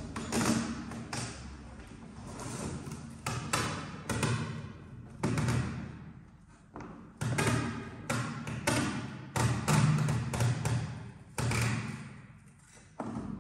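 Cardboard box being handled and packed: irregular thumps, taps and rustling of cardboard, coming in short bunches with quieter gaps.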